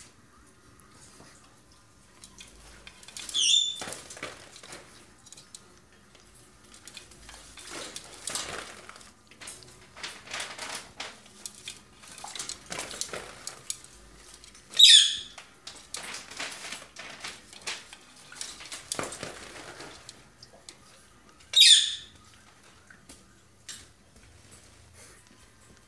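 Hawk-headed parrot bathing in its water bowl: splashing and flapping its wings in the water, mostly in the middle stretch. Three short, shrill squeals that fall in pitch are the loudest sounds: one near the start, one about midway and one near the end.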